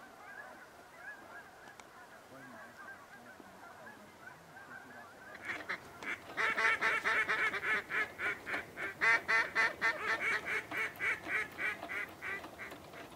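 Geese honking: faint honking from a flock overhead, then a loud, fast, steady run of honks from about five seconds in until just before the end.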